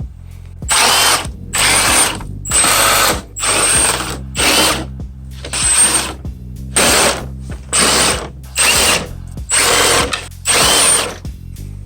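Cordless power tool running in about fourteen short bursts, each with a high whine, spinning out the small 8mm bolts that hold a Ram 1500 grille together.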